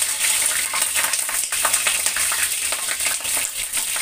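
Tempering spices (panch phoron seeds, curry leaves and chillies) sizzling and crackling in hot mustard oil in a kadhai, stirred with a metal slotted spoon: the tadka being fried before the masala goes in.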